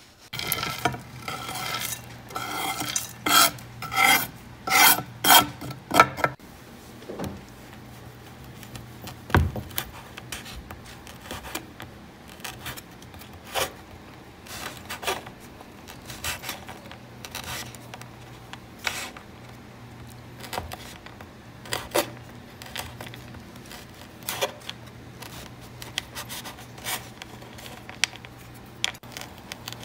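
Kitchen knife cutting on a wooden cutting board. For about the first six seconds the strokes are loud and even, about two a second; after that they are softer and scattered as the knife slices through dried figs.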